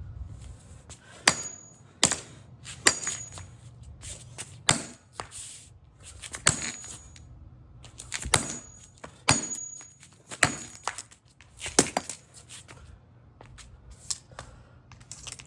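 A hammer striking the broken plastic headphones: about a dozen sharp, separate knocks at uneven gaps of one to two seconds, some with a brief high ring.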